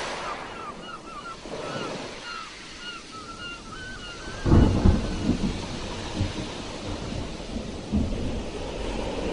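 Sea waves breaking, with a heavy crash about four and a half seconds in and churning surf rumbling after it. A run of short, high repeated chirps sounds over the quieter wash before the crash.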